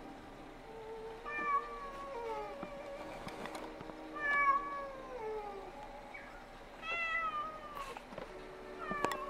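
Calico kitten meowing over and over, about four drawn-out meows, each falling in pitch: the calls of a kitten stuck on a roof and wanting to come down.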